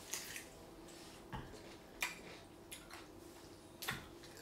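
A handful of faint, short clicks and taps from handling food and a utensil at a table, about five in four seconds, over a quiet steady hum of room tone.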